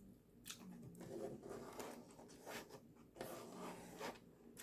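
Faint chewing of a mouthful of grinder sandwich: soft, irregular mouth sounds.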